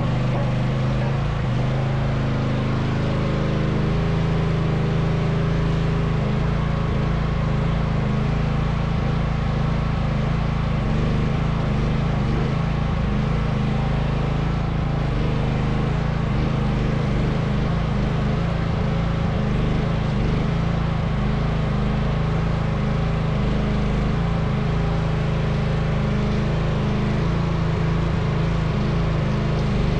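Mini excavator's engine running steadily, a continuous low drone with no letup.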